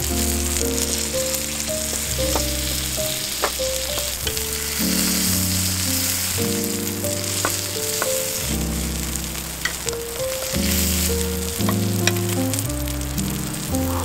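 Thick-cut wagyu steak sizzling on a hot iron plate, a steady hiss, with a few sharp clicks of knife and fork against the plate. Background music with held chords and a low bass runs underneath.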